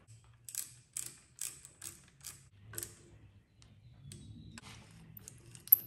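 Clutch lever being fitted to a motorcycle handlebar: a run of light mechanical clicks, about two a second, then a soft low hum and one sharper click near the end.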